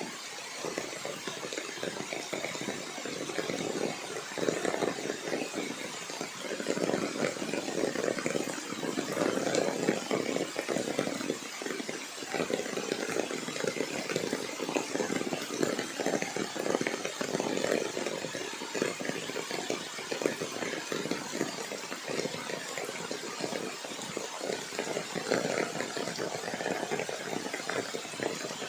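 Steady rain falling, a continuous noisy patter of many drops that swells and eases slightly.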